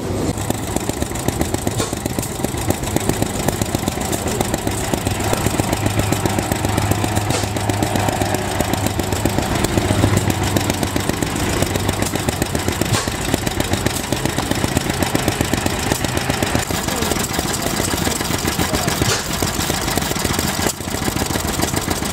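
Vintage stationary engines running steadily in a rapid, even run of exhaust beats. First a large green horizontal stationary engine with a heavy flywheel, then small single-cylinder stationary engines on wheeled trolleys.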